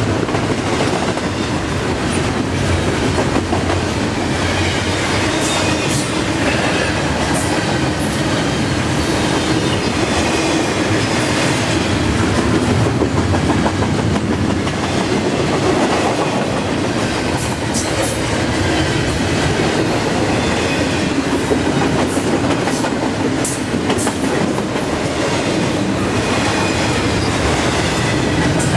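Freight train of intermodal well cars rolling past at about 45 mph: a steady rumble and clatter of steel wheels on the rails, with frequent sharp clicks and a few brief high wheel squeaks.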